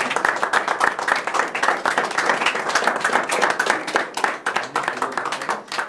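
A small audience applauding: dense hand clapping that starts to thin out near the end.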